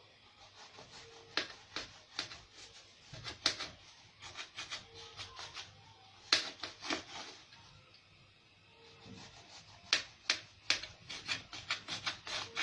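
Knife cutting slices from a baked, cooled loaf of sweet yeast bread (fayesh), a series of short taps and scrapes in irregular clusters with pauses between.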